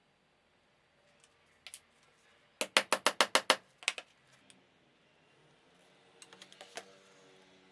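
Hard wooden pieces clacking together: a quick run of about seven sharp clacks in the middle, with a few single clicks before it and a softer cluster of clicks near the end.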